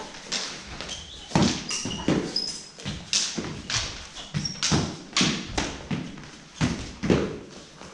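Fencers' feet stamping and thudding on a hall floor while sword and dagger blades clash, some strikes leaving a short high ring.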